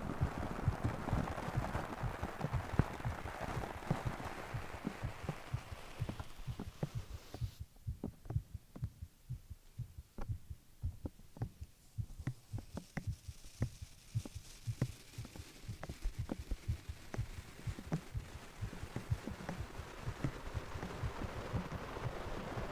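A person's heartbeat: steady, evenly repeating low thumps. Under it is a soft rushing noise that fades out about seven seconds in and comes back in the last few seconds.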